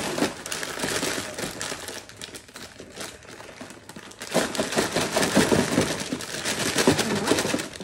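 Clear plastic bag of animal crackers crinkling and crackling as it is handled and the crackers are tipped into a container. The crinkling eases off in the middle and grows louder again about four seconds in.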